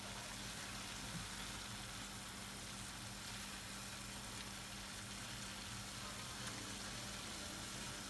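Wild asparagus shoots sizzling and bubbling steadily in a frying pan of oil and a little water, being stirred with a silicone spatula.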